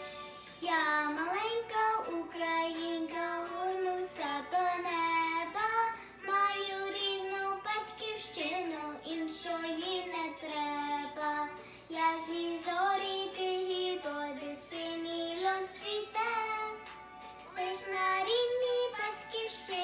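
A little girl singing solo, her melody starting about a second in and carrying on in phrases with short breaths between them.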